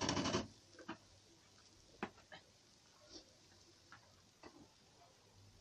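A spoon scraping and stirring grated onion in a large aluminium pot for about half a second, then a few faint scattered ticks, likely from the onion cooking in the fat.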